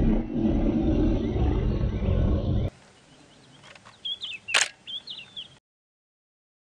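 A lion growling, deep and rough, for about the first two and a half seconds. Then a quieter stretch with a few short high chirps and one sharp click about four and a half seconds in.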